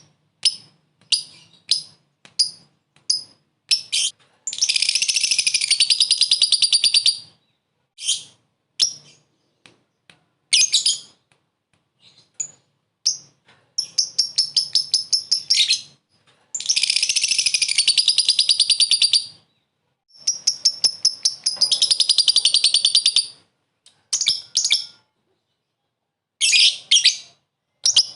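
Lovebird calling: sharp high-pitched single chirps, about one a second at first, broken by four long rapid chattering trills (the 'ngekek') of two to three seconds each.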